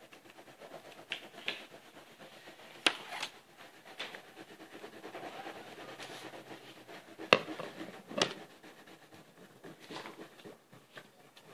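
Wax crayon rubbing and scratching across paper as an area is coloured in, with a few sharp taps standing out.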